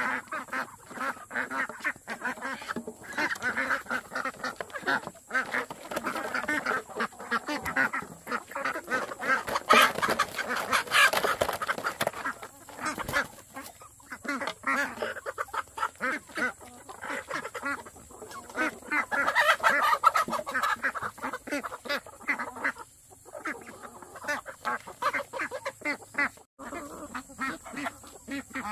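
A flock of domestic poultry calling continuously, many overlapping calls in a constant chatter, a little louder around the middle and again about two-thirds through.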